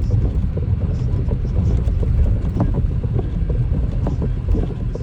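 Snowstorm wind buffeting the microphone: a loud, steady low rumble with small scattered ticks.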